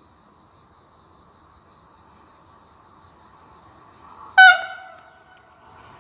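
Siemens Vectron electric locomotive (ÖBB 1293 015, hauling tank wagons) sounds one short, loud horn blast about four and a half seconds in as it approaches. The approaching train's rumble grows slowly under a steady high buzz of insects.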